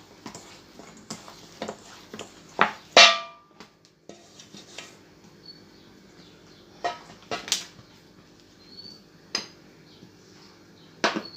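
Kitchen clatter as dishes and utensils are handled on a work surface: scattered knocks and clicks, the loudest a sharp ringing clink about three seconds in.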